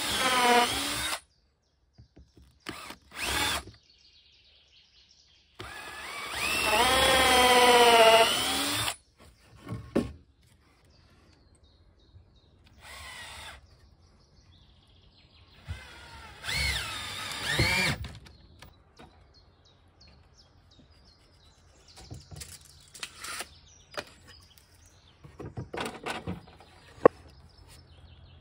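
An 18-volt cordless drill-driver driving into wooden boards in several separate bursts, its motor whine rising in pitch as it speeds up; the longest burst lasts about three seconds. Faint clicks and knocks of handling fill the gaps near the end.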